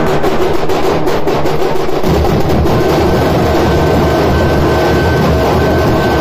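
Large dhol drums beaten with sticks by a drum troupe, loud. For the first two seconds the strikes stand apart, then the beating turns into a dense, continuous low roll. A thin steady high tone sounds over the drumming for part of the time.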